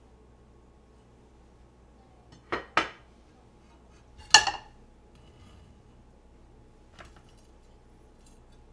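Kitchen knife slicing chicken breast steaks on a plastic cutting board: two quick knocks about two and a half seconds in, then one loud ringing clink of metal a couple of seconds later, and a faint tap near the end.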